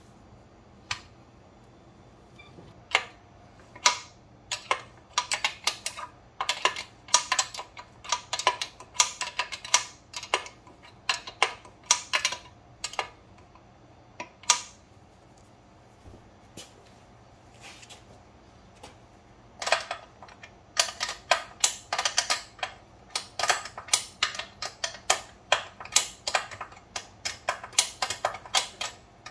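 Ratchet wrench clicking in quick runs of several clicks a second while the motorcycle's chain adjusting bolts are tightened to set chain tension, with a pause of a few seconds about halfway through.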